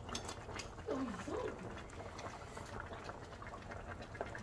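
Metal tongs clicking against a simmering pan of braised pork back ribs and kimchi as pieces are lifted out, over a steady low bubbling. A brief low gliding sound comes about a second in.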